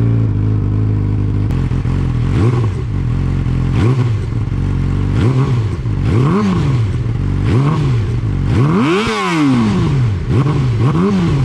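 Yamaha R6 inline-four sport bike engine, fitted with a straight-through slip-on exhaust, idling and being revved in a series of short throttle blips, the highest about nine seconds in.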